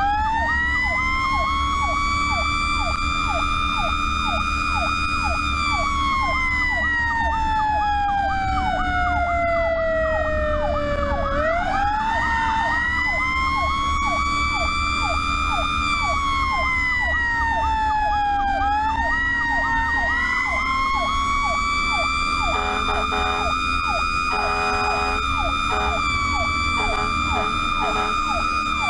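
Fire truck's sirens heard from inside the cab during an emergency response: a fast-yelping siren over a slower wail that rises and sinks unevenly over several seconds. About three-quarters of the way through, the fast siren turns choppier. A steady low engine and road hum runs underneath.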